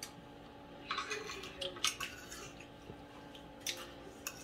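Light clinks and taps of cutlery against plates and bowls during a meal, a few scattered ones about a second in, near two seconds and near the end, over a faint steady hum.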